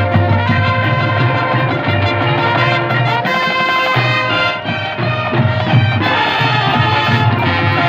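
Marching band playing, with held brass chords over drums and a change of texture about three seconds in.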